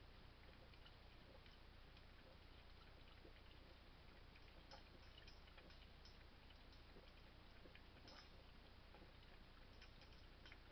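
French bulldog puppy lapping water from a metal bowl: faint, irregular wet clicks over a steady low hum.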